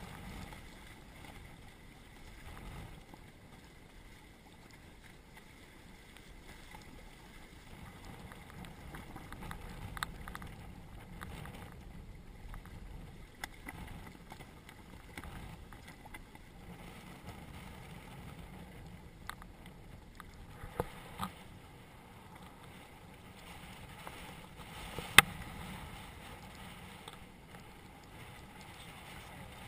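A Hobie Cat catamaran under sail, its hulls washing through choppy water with a steady rush and splash. Scattered sharp clicks and knocks sound over it, the loudest a little before the end.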